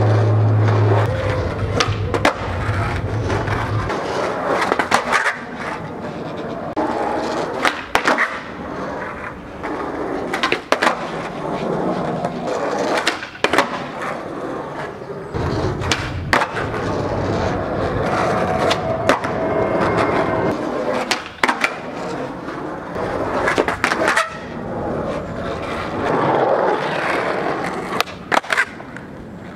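Skateboard wheels rolling over asphalt, broken again and again by sharp pops of the tail and clacks of the board landing as flatground flip tricks are done.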